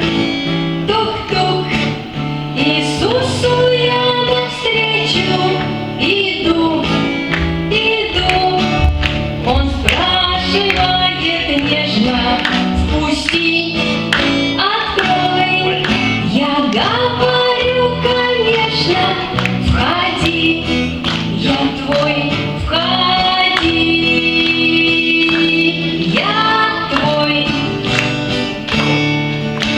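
A woman singing a children's Christian song over instrumental backing, with children's voices singing along.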